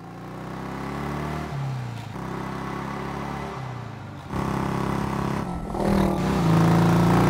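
Motorcycle engine running and revving, fading in at the start, its pitch stepping up and down several times. It grows louder about four seconds in and again near the end.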